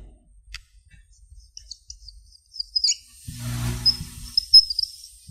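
Marker squeaking on a whiteboard as Chinese characters are written: a string of short high squeaks, some sliding in pitch, with a brief low sound about three and a half seconds in.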